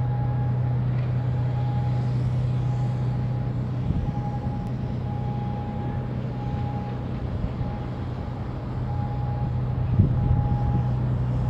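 A steady low mechanical hum over a constant background rumble, with a few short knocks about ten seconds in.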